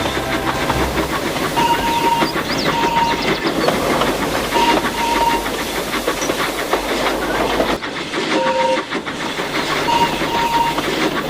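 Steam locomotive running with steady chuffing and wheel clatter on the rails. Its whistle gives a series of short toots, mostly in pairs.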